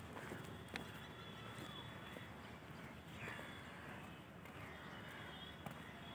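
Faint outdoor ambience with distant bird calls rising and falling in pitch, and a few light footsteps on track ballast.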